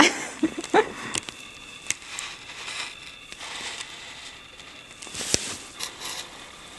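Irregular crunching and crackling of snow close to the microphone, with a few sharper clicks scattered through it.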